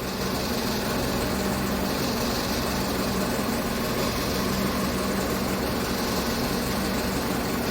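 2015 Chevrolet Tahoe V8 idling steadily with a misfire, which the mechanic traces to a faulty spark plug after the misfire moved with the swapped plug from cylinder 1 to cylinder 3.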